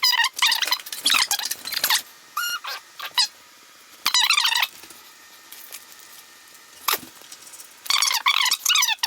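Packing foam squeaking and squealing as it is rubbed and pulled, in bursts of high, wavering squeals separated by short quiet gaps.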